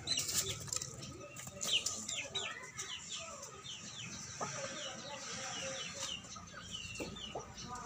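Chickens clucking, with many short high chirps throughout and a couple of brief wing flaps in the first two seconds.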